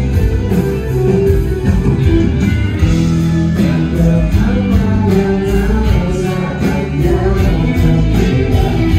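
A band playing amplified rock music: guitar, bass and drums, with a singing voice.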